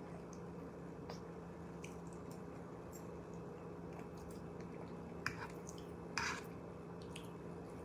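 Quiet room noise with a steady low hum and scattered faint clicks and soft squishy mouth noises, with two short louder noises about five and six seconds in.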